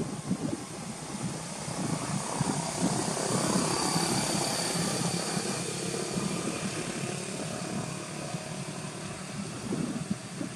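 Wind buffeting the microphone outdoors, with a distant engine drone that swells and fades about three to six seconds in.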